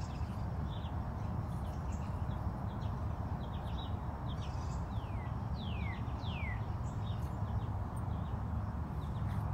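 Small birds chirping now and then, with three falling whistled notes about halfway through, over a steady low rumble.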